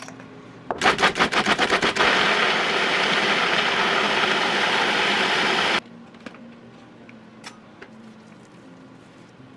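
Food processor blending garlic scapes, walnuts and cheese into pesto: a quick run of short pulses, then a steady run for about four seconds that cuts off suddenly.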